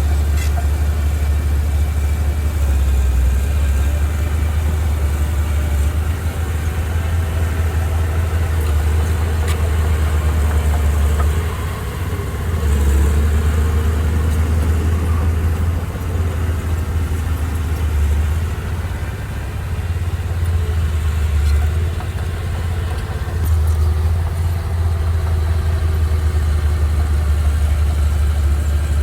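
Diesel engine of heavy earthmoving machinery running steadily with a deep low drone, easing off slightly a couple of times.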